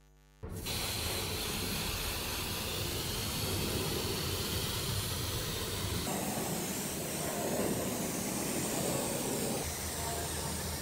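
Aerosol spray paint can spraying in a steady hiss, starting about half a second in, its tone shifting about six seconds in.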